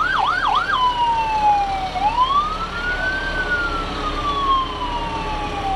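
Emergency vehicle siren: a fast yelp of quick rising-and-falling whoops changes about a second in to a slow wail, which rises for about a second and then falls away slowly.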